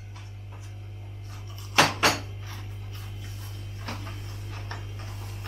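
Two quick clinks of cutlery on a plate about two seconds in, over a steady low hum.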